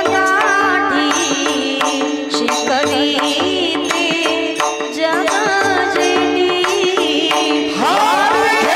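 Kirtan devotional music without words: a melody over steady sustained notes, with regular percussion strokes.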